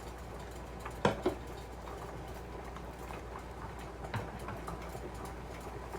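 Quiet kitchen with a steady low hum and a few light clicks and knocks, the loudest about a second in.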